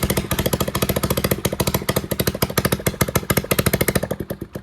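Hero Splendor Plus's single-cylinder four-stroke engine idling with a loud, uneven phat-phat from the exhaust. This is the sign of an exhaust leak at the silencer, whose two mounting bolts have come loose and whose packing has worn out. Near the end the beats slow and fade as the engine winds down.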